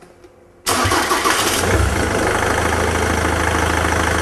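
Ford Mondeo 2.0 TDCi common-rail diesel engine starting suddenly a little under a second in, then settling into a steady idle. It is running with an intake hose pulled off, a severe air leak ahead of the air mass meter.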